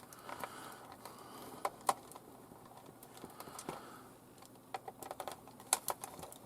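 Light scattered clicks and taps of a small Torx screwdriver backing out tiny case screws from a plastic radio housing, with a cluster of quick clicks near the end.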